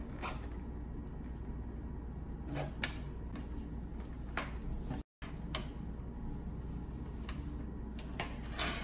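Scattered light clicks and taps of an Allen key and screws against the Ender 3 Pro's metal control-panel bracket as it is screwed back onto the printer frame, over a low steady hum. The sound drops out for a moment about five seconds in.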